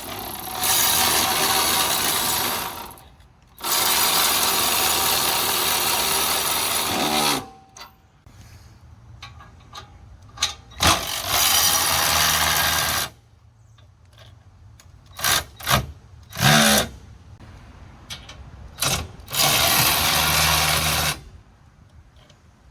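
Ryobi 18-volt cordless ratchet running in four long runs of a few seconds each, with a few short blips between, driving the screw of a travel trailer's stabilizer jack up or down.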